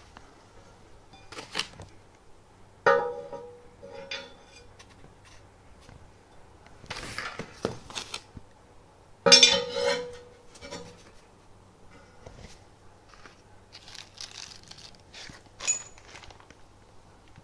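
Large aluminium plate from a 3D printer frame being handled. It gives two sharp clangs, about 3 and 9 seconds in, each with a brief ringing tone, the second the louder. Between them comes rustling of foam packing.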